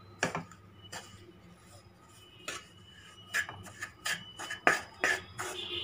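Wooden spatula scraping and knocking against a kadai while stirring maida flour roasting in ghee: irregular short scrapes and taps with quieter gaps between.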